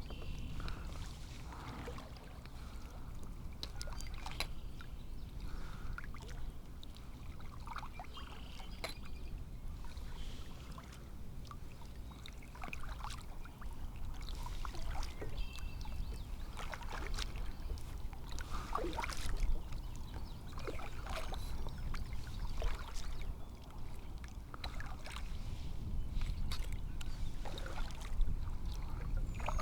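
Water lapping and trickling against a kayak hull, over a low steady rumble, with scattered light knocks and clicks.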